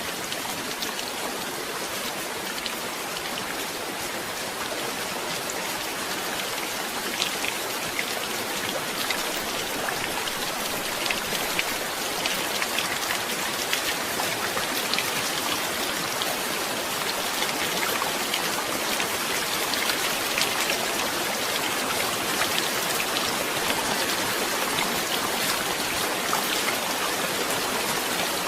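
Steady rain falling, with many individual drops ticking sharply over an even hiss, growing slightly heavier through the stretch.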